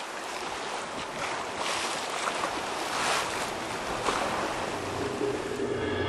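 Wind and sea water rushing past a sailboat under way, rising and falling in swells, with wind buffeting the microphone. Music fades in near the end.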